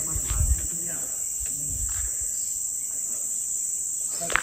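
Insect chorus: a steady, high-pitched drone, with a few low thumps in the first half second.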